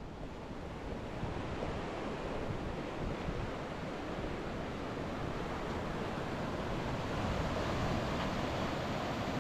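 Ocean surf breaking over a reef and rocky shore: a steady rush of waves that slowly grows louder.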